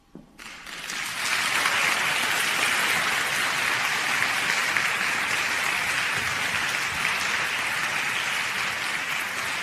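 Concert hall audience applauding: the clapping breaks out suddenly just after the start, swells within about a second and a half, then carries on steadily.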